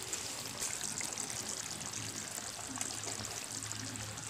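Coconut-milk stew simmering in a wok, a steady bubbling hiss with many small pops.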